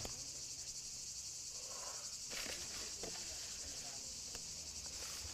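Insects chirring in a steady high-pitched drone, with a few faint taps.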